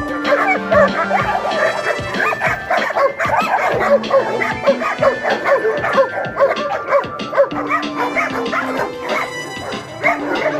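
German shepherd barking over and over in quick, short barks, with background music of long held chords underneath.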